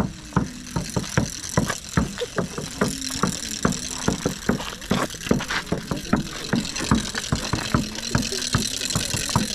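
Steady rhythmic percussion beating about three to four strikes a second, over a low held tone that steps up and down in pitch a few times.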